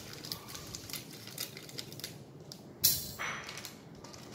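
Small plastic LEGO pieces clicking and rattling as they are handled and sorted, with one sharp, louder clack a little under three seconds in.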